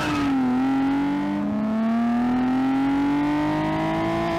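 Nissan 370Z's 3.7-litre V6 pulling hard through the gears on a no-lift-shift tune. It opens with a brief stuttering crackle as the shift is made flat-out, then the revs drop and climb steadily through the next gear.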